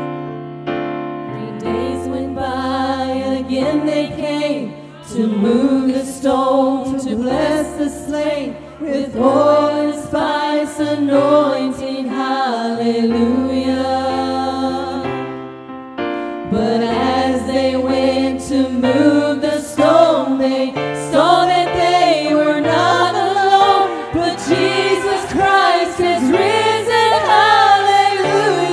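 Four women singing a slow gospel worship song in harmony, accompanied by a keyboard playing held chords.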